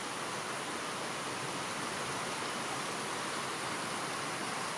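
Heavy rain falling steadily, an even hiss with no thunderclap in it.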